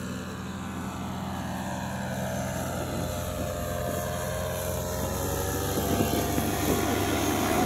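Paramotor's two-stroke engine and propeller running steadily as it flies low toward and over the listener, growing louder throughout, its pitch sliding slightly lower.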